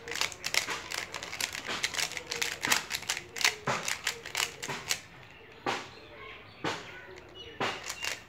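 Plastic Square-1 puzzle clicking and clacking as its layers are turned and sliced fast during a speedsolve. A quick, dense run of clicks thins out about five seconds in to a few separate clacks.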